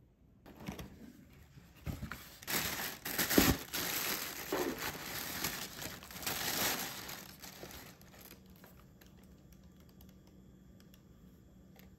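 Tissue paper crinkling and rustling in a cardboard shoebox as a pair of sneakers is unwrapped. It starts about half a second in, is loudest in the middle with a few sharp crackles, and dies away about two-thirds of the way through.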